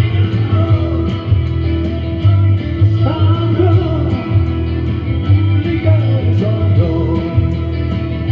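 A small rock band playing live: electric guitars and drums, with cymbal ticks keeping a steady beat.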